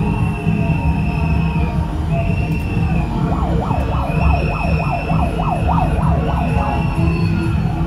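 Street parade din with a steady low rumble, over which a high steady tone sounds in long blasts about every second and a half; from about three seconds in, a fast siren-like warble rises and falls about three times a second for some four seconds.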